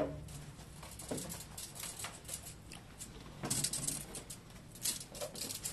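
Handling noises from a tape measure and an electric unicycle: a knock right at the start, then scattered light clicks and taps, with a brief rustling scrape about three and a half seconds in.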